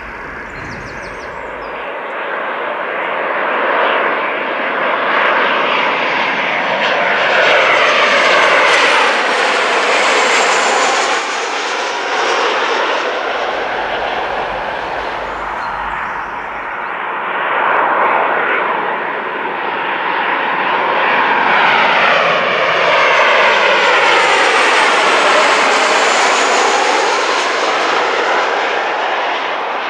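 Ryanair Boeing 737 jet airliner on final approach passing low overhead: a loud rushing jet-engine noise that swells to a peak about a third of the way in, eases, then swells again through the second half, with whistling tones sweeping down and back up at each peak.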